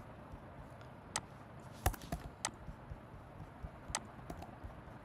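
Scattered single clicks from working a computer, about six in all, a second or so apart, the loudest just before two seconds in, over a faint steady hiss.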